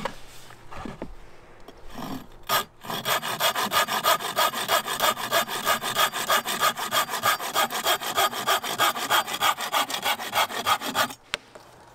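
Stedi folding pruning saw cutting across a wooden dowel in quick, even push-pull strokes, about three a second. The strokes start about three seconds in, after a knock, and stop abruptly near the end.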